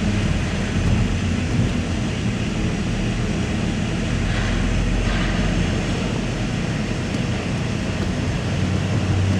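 Steady low rumble of vehicle engines on a ferry's car deck, with two short hissing sounds about halfway through.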